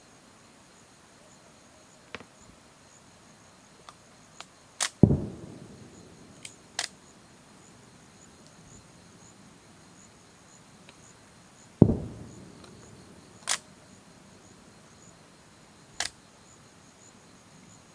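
Fireworks going off: two deep booms with a long rolling echo, one a few seconds in and one past the middle, among several sharper cracks and small pops.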